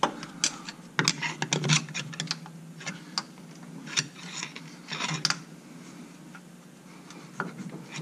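Steel screwdriver scraping and clicking against the metal of a car's rear subframe mount as it is levered to line the parts up: irregular sharp clicks and short scrapes, a quick cluster about a second in and more near four and five seconds.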